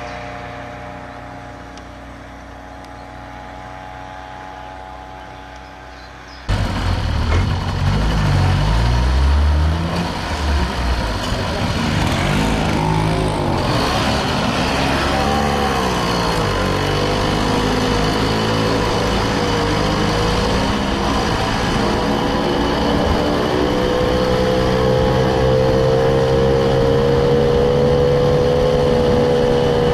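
Vehicle engine running steadily, then after an abrupt cut about six seconds in, a louder engine heard close up, its pitch rising and falling as it speeds up and slows before settling into a steady drone.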